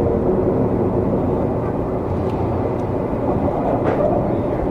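Seibu 20000 series electric multiple unit running along the line: a steady rumble of wheels, motors and car body, with a few faint clicks.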